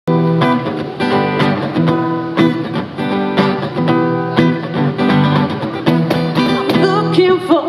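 Acoustic guitar strumming chords as a song's instrumental intro, played through a PA. Near the end a woman's voice comes in singing.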